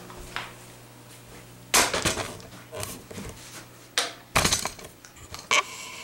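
A few short knocks and clatters, spaced irregularly, the loudest a heavier thump about four and a half seconds in.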